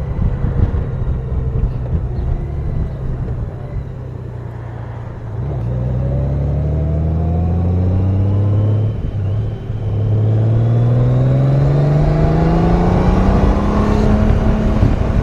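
Honda Goldwing motorcycle engine heard from the saddle, running low for about five seconds, then accelerating with its pitch climbing. Around nine seconds in the note drops briefly as it shifts up, then climbs again.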